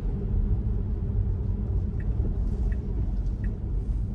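Steady low road rumble and tyre noise inside a Tesla's cabin on a wet road as the car slows. About halfway through, the turn-signal indicator starts ticking evenly, roughly three ticks every two seconds, as the car nears an intersection to turn.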